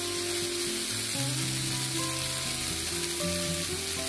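Marinated chicken pieces sizzling in hot oil in a nonstick pan, stirred with a spatula as they fry dry, their water cooked off. Background music of held notes runs underneath.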